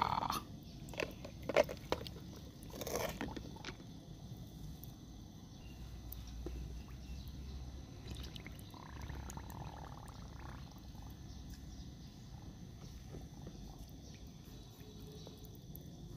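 A few short splashes and knocks as plastic toy animals are moved through muddy water, then a faint steady outdoor background.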